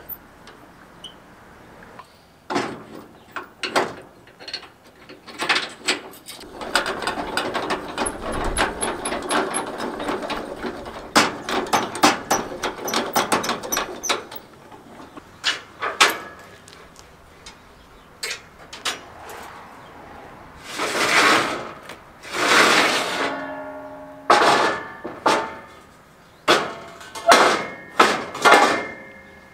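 Steel crank-handle trailer stabilizer jack being wound down, a long run of rapid rattling clicks. Near the end, steel loading ramps scrape twice and clank into place, the metal ringing after each knock.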